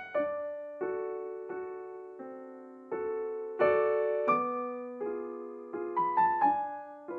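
Background piano music: slow single notes and chords struck about every two-thirds of a second, each ringing and fading before the next.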